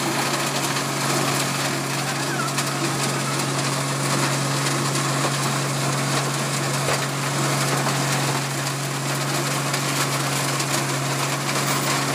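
Road milling machine running: a steady engine drone with a constant low hum under a continuous harsh, hissing grinding noise, even in level throughout.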